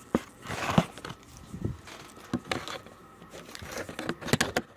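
Hands handling a small plastic gadget and its packaging: crinkling and rustling with an irregular string of sharp clicks and taps.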